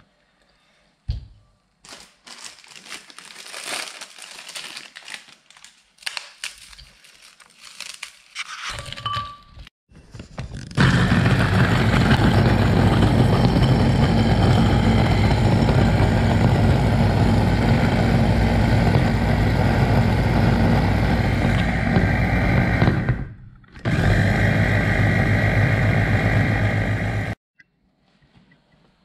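Plain biscuits being broken up with crinkling and cracking. Then an electric chopper runs loudly and steadily for about sixteen seconds, grinding the biscuits into crumbs for a cake base. It stops briefly about two-thirds of the way through.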